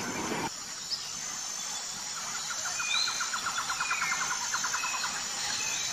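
Forest ambience: birds chirping over a steady hiss. A fast trill of repeated notes runs through the middle, and short high chirps come here and there.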